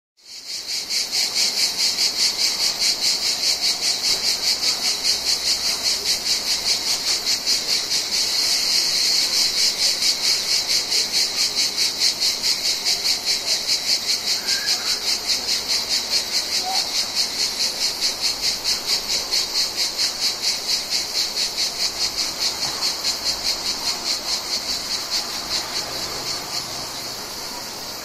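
Mediterranean cicadas singing in a loud, high chorus that pulses about three to four times a second, dying down to a steadier hum near the end.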